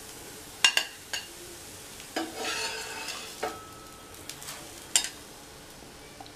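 A steel spatula scrapes and clicks against a cast-iron dosa tawa and a plate as cooked rotis are lifted off. There are a few sharp clicks and a scrape, and one clink rings briefly about three and a half seconds in. Oil sizzles faintly on the hot tawa throughout.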